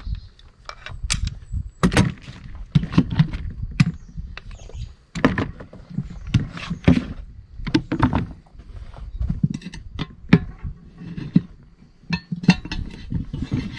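Tire irons prying a small tractor tire's bead over its rim by hand: a run of irregular knocks and clanks of metal tools against the rim, with duller thuds between them.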